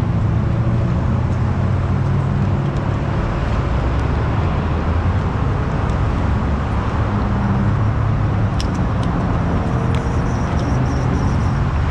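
Steady highway traffic: cars and trucks passing on the freeway, a constant low rumble of engines and tyres.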